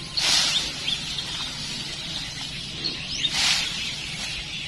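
Leaves and branches rustling in two short swishes, one right at the start and another about three seconds later, with faint bird chirps in between.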